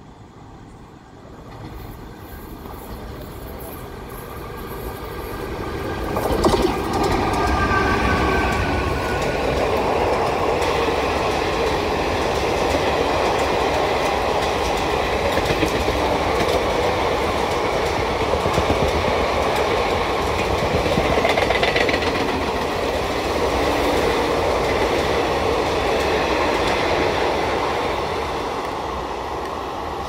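The 18048 Vasco da Gama–Shalimar Express approaching and running through the station without stopping. About seven seconds in, its locomotive horn sounds for about two seconds, dipping slightly in pitch. Then comes the steady rumble and clatter of the coaches' wheels on the rails as the train passes, easing near the end.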